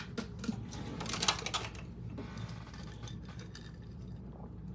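Small clicks and clatters of things being handled in the first second and a half, then quieter handling noise.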